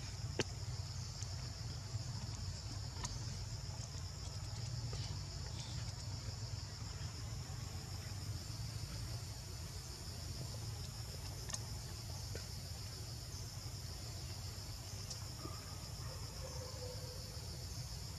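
Steady high-pitched chirring of an insect chorus (crickets or cicadas), over a low steady rumble of outdoor background noise, with a few faint ticks.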